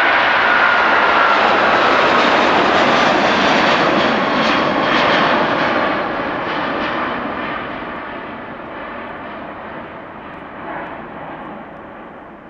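Boeing 777-200's twin jet engines at takeoff power as it lifts off and climbs away: a loud rushing jet noise with a slightly falling whine at first, loudest for the first few seconds, then fading steadily.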